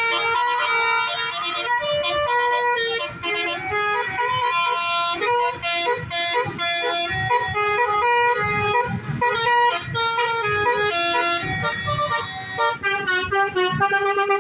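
Basuri (telolet) bus horn playing a melody of stepped notes, loud and nearly unbroken, with a passing bus audible under it.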